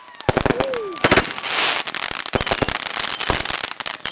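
Fireworks going off in a rapid, irregular string of sharp bangs and crackling, with a short falling whistle about half a second in.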